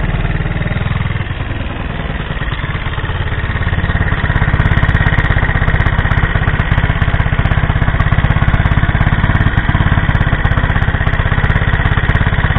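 Scooter engine idling, a steady, fast-pulsing rumble that gets louder about four seconds in.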